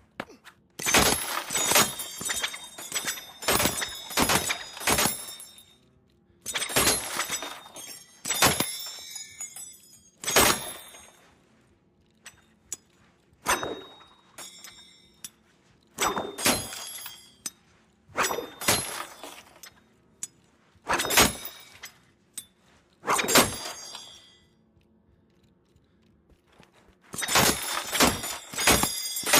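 Metal shuriken (throwing stars) clinking and striking in quick clusters of sharp hits. Each hit has a bright metallic ring. The clusters come in short runs separated by pauses of a second or two.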